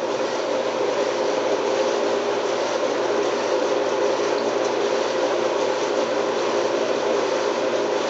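Hobart-built 1959 KitchenAid KD-12 dishwasher running: a steady, even hum and hiss with a few constant tones, unchanging throughout.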